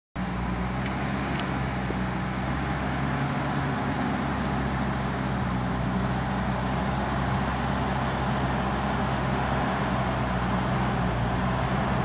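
JCB backhoe loader's diesel engine running steadily under load as the machine pushes soil forward with its front loader bucket.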